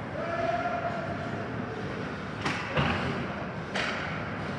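Ice hockey play in a rink: a steady arena din with a few sharp knocks of sticks and puck, two close together about two and a half seconds in and another near the end.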